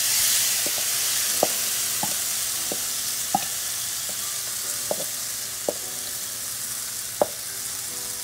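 Marinated chicken thighs and sliced onions sizzling in a hot nonstick frying pan just after going in, a steady hiss that eases slightly over the seconds. A cooking spoon knocks against the pan about ten times.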